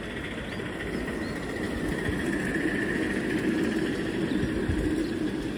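Ride-on miniature steam train rolling past on its track, the wheels of the locomotive and passenger cars rumbling on the rails. It swells as the coaches go by and eases slightly near the end.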